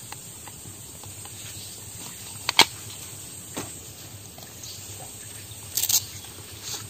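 Handling noises over a quiet steady background hiss: a few sharp clicks and knocks, two close together about two and a half seconds in and a short cluster near the end.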